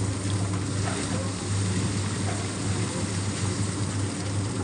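Poultry plucking machine running: a steady motor hum with a dense noisy churn from the spinning drum as it strips the feathers off broiler chickens.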